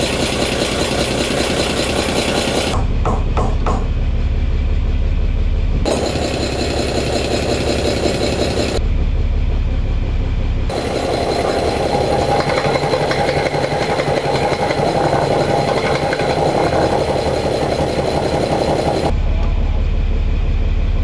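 Turbocharged 230 hp Mercedes marine diesel engine running steadily and loudly. Several times the sound shifts abruptly to a much deeper, heavier rumble with little hiss above it, then shifts back.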